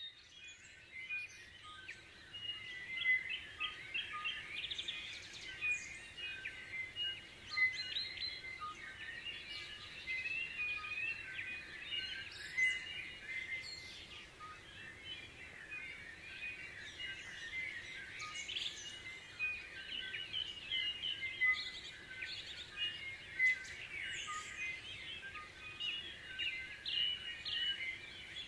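Dawn chorus: many birds singing at once, their chirps, trills and whistles overlapping continuously. It fades in over the first second or so.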